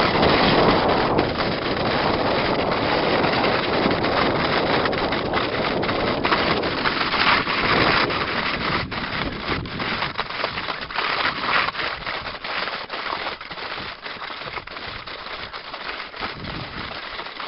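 Steady rushing noise of travel along a snowy trail: wind buffeting the microphone mixed with scraping and crunching over snow, peppered with many small knocks and crackles. It eases off and thins out from about halfway.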